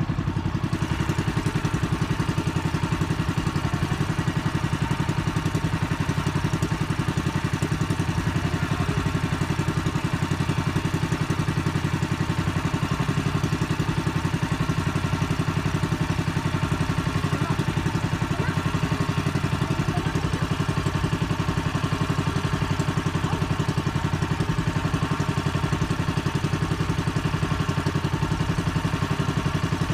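Small engine of a motorized outrigger fishing boat running steadily, a fast, even pulsing beat that stays unchanged throughout.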